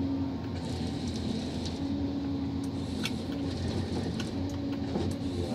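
John Deere 1270G harvester running, heard from inside the cab, as the H480 head grips and feeds a stem: a steady engine and hydraulic drone, with a hum that comes and goes in stretches and occasional light clicks.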